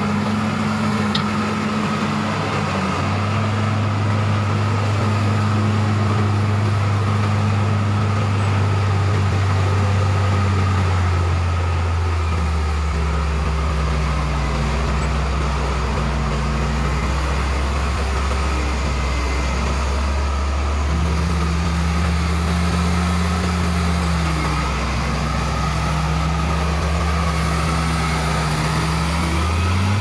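Crawler bulldozer's diesel engine running hard while the blade cuts and pushes soil. Its note drops and picks up again several times as the load changes.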